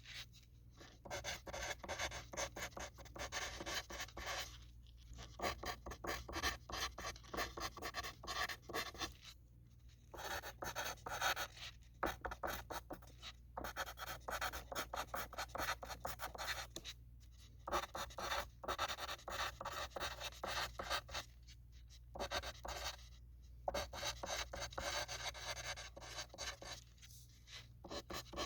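Pencil writing on a sheet of paper: quick scratchy strokes of graphite on paper in runs of a few seconds, with short pauses between them.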